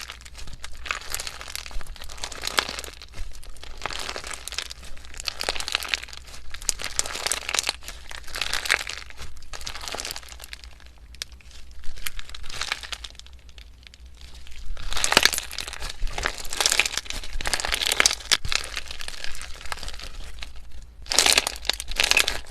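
Slime being squeezed and worked by hand, giving bursts of crackling, crinkling noise with short pauses between handfuls.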